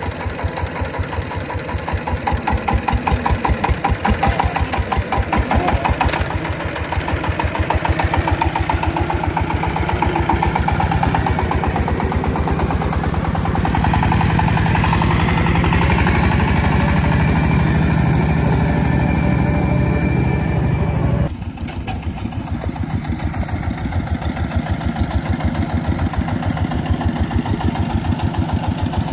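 Single-cylinder farm diesel engine running with a rapid, even chugging. It grows louder and heavier about halfway through, then drops suddenly about two-thirds of the way in and runs on more quietly.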